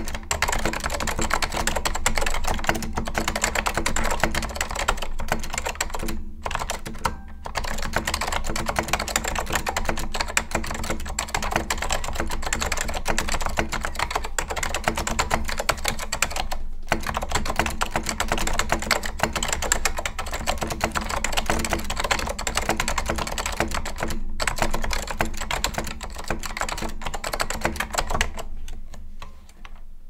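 Continuous typing on a 1995 Apple Extended Keyboard II (M3501) with dampened white ALPS switches: a dense stream of key clicks with a few brief pauses. The typing fades out near the end.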